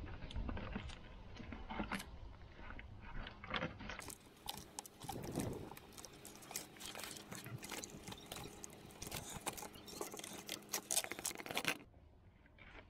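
Crackling and clicking of plastic corrugated wiring-loom conduit and car wires being handled and pulled apart by hand, busiest from about four seconds in and dropping away near the end.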